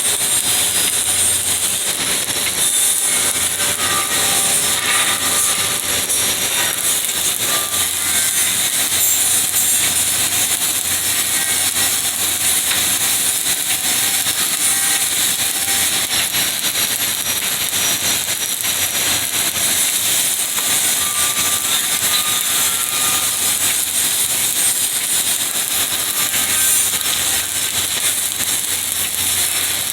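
Stick (shielded metal arc) welding with a 1/8-inch 7018 electrode: the arc gives a steady, crackling high hiss, with a low hum underneath.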